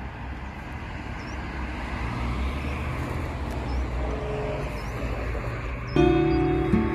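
Steady low rumble of road vehicle noise. Music comes in about six seconds in.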